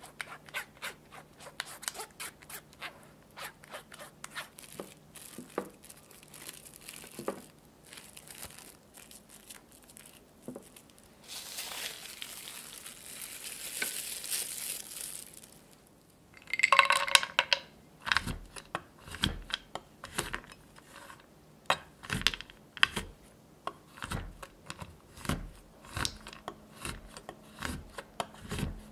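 A silicone spatula scrapes pastry cream through a fine metal sieve into a glass dish in quick small strokes. Then plastic cling wrap hisses as it is pulled and crinkles loudly as it is pressed over the dish. Then a knife chops chocolate on a wooden cutting board in steady knocks, a little under two a second.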